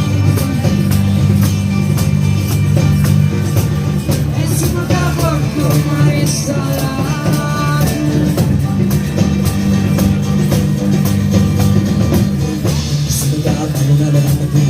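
Music with a steady beat and sustained low bass notes.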